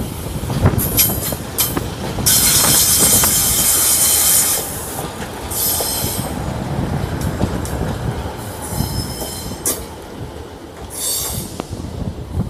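Northern Class 144 Pacer and coupled Class 153 diesel units rolling slowly into the station, their wheels squealing: a loud screech from about two seconds in to about four and a half, then shorter squeals near six, nine and eleven seconds. Sharp clicks as the wheels cross the track, over a low rumble.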